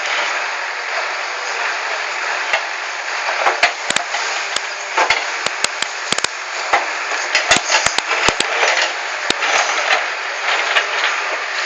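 Caterpillar 424B backhoe loader working, a steady machine noise broken by many irregular sharp knocks and crunches, more frequent from about three seconds in, as rock and soil are dug and dropped.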